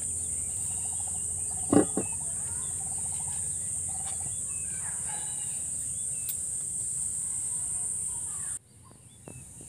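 Steady, high-pitched chirring of crickets, with faint background voices and a single short knock about two seconds in. The chirring cuts off abruptly near the end.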